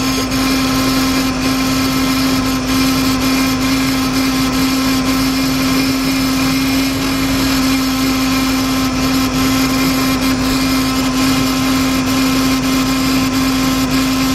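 Ford 5.4-litre V8 of a 2004 Lincoln Navigator idling with the hood open, a steady whine over the engine noise. The engine is running rough with a cylinder misfire.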